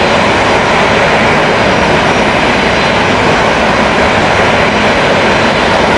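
De Havilland Canada Dash 8's turboprop engines running steadily as the airliner taxis: a loud, even rushing noise with a faint high whine.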